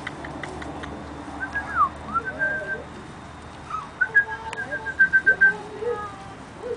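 Whistle-like calls: a falling slide of a note, then a quick run of about eight short repeated notes at one pitch, with lower arching, cooing glides in between.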